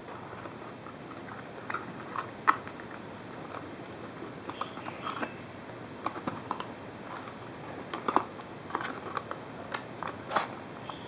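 Light, irregular clicks and taps of small plastic items being handled.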